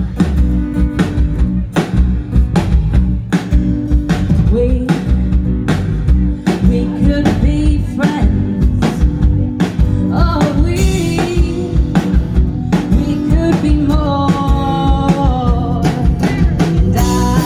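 A live rock band playing, with a drum kit keeping a steady beat under guitars and a lead melody line that bends in pitch.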